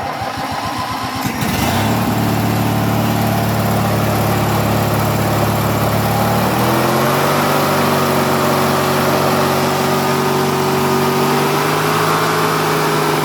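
1980s MTD garden tractor's 18.5 horsepower Briggs & Stratton engine cranking on the starter, catching after about a second and a half and running steadily. About six and a half seconds in, its pitch rises as it speeds up and holds there. The owner suspects the engine has a rod knock.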